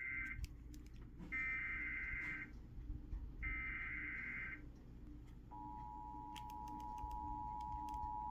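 Emergency Alert System SAME header: short bursts of warbling digital data tones, the tail of one at the start and two more of about a second each, a second apart. About five seconds in, the steady two-tone EAS attention signal begins, announcing a severe thunderstorm warning.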